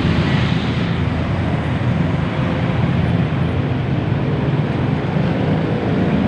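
Dense traffic crawling at low speed: a steady din of vehicle engines running, with a low engine hum beneath.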